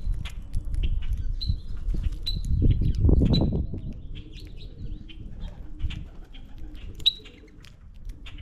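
Common grackles at a feeder: a flurry of wingbeats peaking about three seconds in, with short high chirps and scattered clicks and taps.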